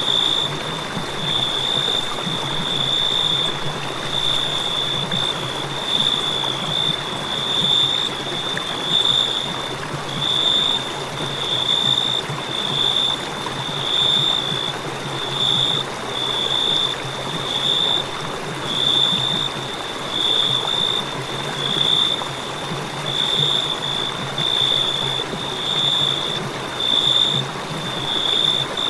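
Crickets chirping: a continuous high-pitched trill that swells and fades about once a second, over a soft steady hiss.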